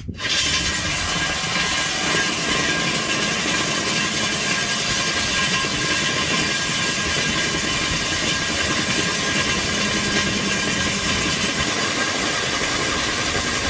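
DUSS DIA 200 HWS handheld diamond core drill dry-drilling into a concrete wall with soft impact and dust extraction. It is a loud, steady grinding whir with a strong hiss and cuts in suddenly at the start.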